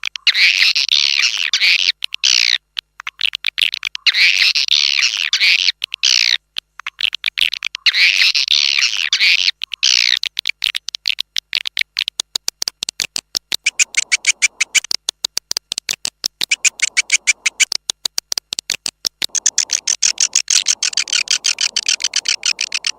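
Swiftlet lure recording: swiftlet twittering calls in three repeated phrases about two seconds long, each with arching chirps, then from about ten seconds in a fast run of dry clicks mixed with higher twittering. It is an external call track played from a bird house to draw swiftlets in to roost and nest.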